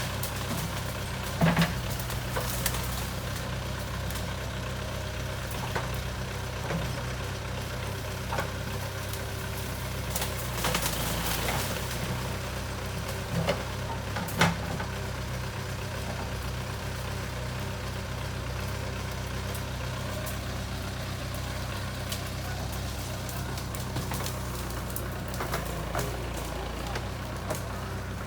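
JCB 3CX backhoe loader's diesel engine running steadily, with a few short knocks and clanks in the first half.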